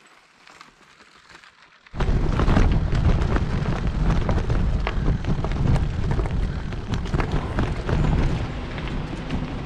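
Faint outdoor quiet with light ticks, then about two seconds in a sudden loud rumble of wind on the microphone with the crunch and rattle of a loaded gravel bike rolling fast over a gravel forest road.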